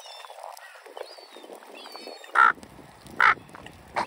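Ducks quacking: two loud, short quacks about two and three seconds in, then a weaker one at the end.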